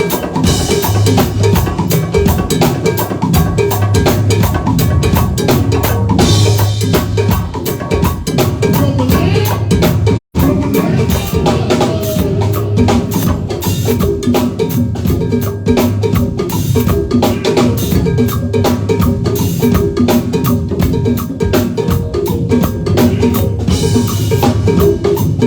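Live band playing an instrumental passage with the drum kit to the fore: bass drum, snare and rimshots over a steady bass line. The sound cuts out for a split second about ten seconds in.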